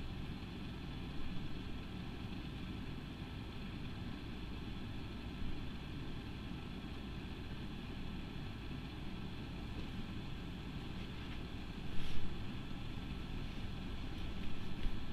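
Steady low background hum and rumble, with one short sharp knock about twelve seconds in.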